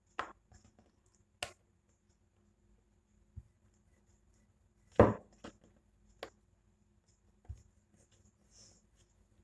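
Rolling pin knocking and tapping on a countertop as a thin momo wrapper is rolled out: a handful of separate sharp knocks, the loudest about five seconds in.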